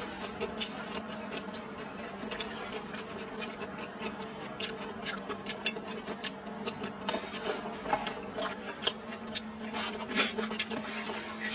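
Close-up eating: wooden chopsticks clicking and scraping against a stainless steel bowl, with chewing, as many short irregular clicks. A steady low hum runs underneath.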